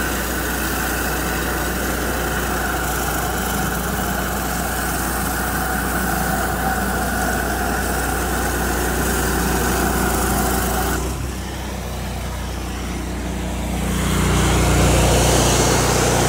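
Pressure washer's Honda GX800 V-twin engine running steadily under the hiss of a 19-inch Whisper Wash surface cleaner spraying concrete, its repaired spray bar working properly. About eleven seconds in, the spray hiss drops away, leaving the engine, which grows louder near the end.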